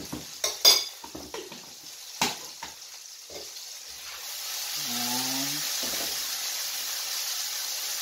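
Minced garlic going into onions frying in oil in a pan: several sharp clinks of a spoon in the first few seconds, then a steady sizzle that swells about halfway through as the pan is stirred with a spatula.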